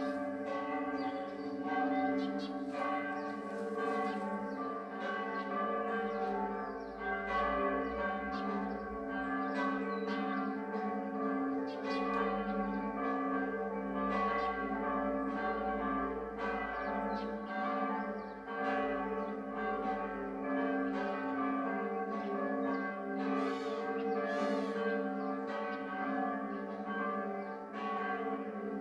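Church bells pealing, several bells striking over and over so that their ringing overlaps into a continuous peal.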